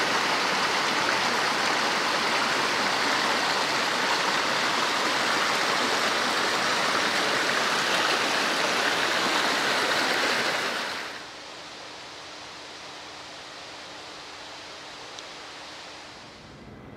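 Small mountain stream rushing over stones, a loud steady rush of water. About eleven seconds in it cuts off to a much quieter steady hiss.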